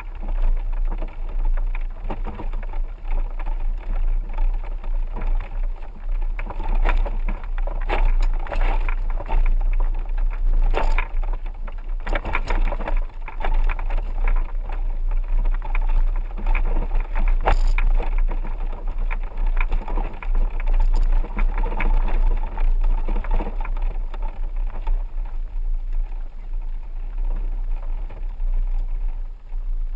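4x4 vehicle driving on a rough dirt road, with a steady low rumble of engine and tyres. Scattered knocks and rattles as it jolts over bumps, most of them in the middle stretch.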